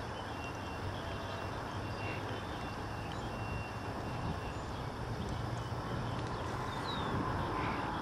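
Steady outdoor background rumble and hiss, with a few faint, thin, high bird chirps, one falling chirp near the end. The woodpecker makes no tapping.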